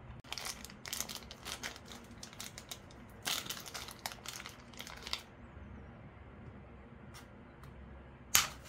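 A small clear plastic zip bag of brass revolver cartridges crinkling as it is handled and opened, in a quick run of crackles over the first five seconds. A single sharp click near the end.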